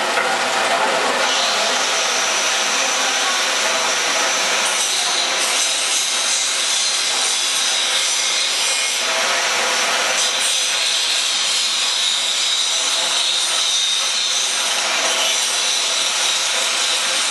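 Hexagonal metal seasoning drum turning with fried potato chips tumbling inside: a steady, dense rustling noise.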